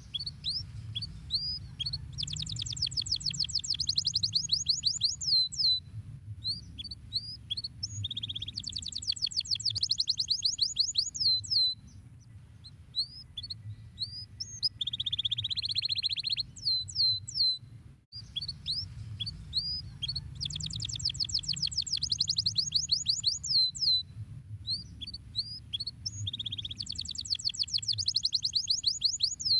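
Domestic canary singing: fast, high trills of rapidly repeated notes, separate chirps, and a buzzy rolled phrase, with short pauses between phrases. Just past the middle, the song breaks off briefly and the same sequence starts over.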